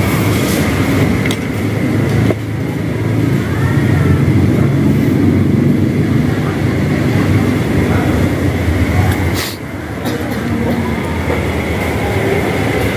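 Busy restaurant background noise: a steady, loud low rumble with indistinct chatter, a faint constant high whine and a few light clicks, dipping briefly about two-thirds of the way through.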